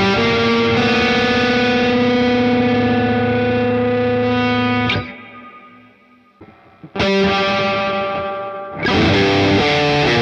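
Distorted electric guitar played through the Joyo R-14 Atmosphere reverb pedal. Sustained chords ring out, then stop abruptly about five seconds in. After a couple of seconds of near silence, another chord swells and fades, and more chords follow near the end.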